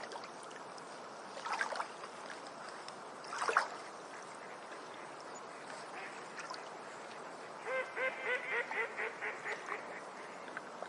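Duck quacking: a quick run of about ten quacks, about five a second, starting a little under eight seconds in and fading toward the end. Two short noisy sounds come earlier, the louder about three and a half seconds in.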